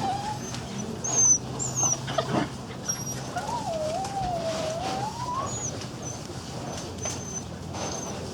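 A small dog whining: one long, wavering whine that starts about three seconds in and lasts about two seconds. Short high chirps recur throughout, with a few knocks early on.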